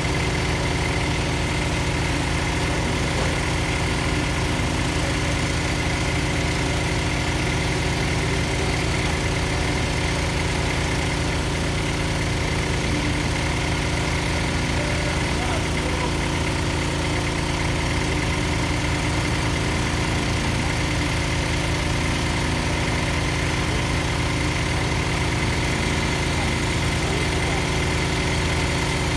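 Engine of a small trailer-mounted borehole drilling rig running steadily at a constant speed.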